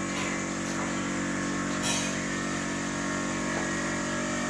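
Steady machine hum with several held tones and a low pulsing underneath, with one short tick about two seconds in.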